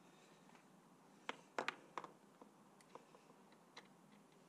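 A few faint, sharp clicks and light knocks from parts and tools being handled: a quick cluster of about four about a second and a half in, then a few fainter single ticks.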